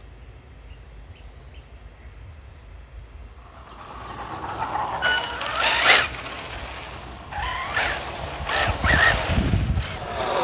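HPI Baja 5B Flux 1/5-scale electric buggy driving slowly on asphalt: from about four seconds in its brushless motor whines, the pitch rising and falling with the throttle, louder around six and nine seconds.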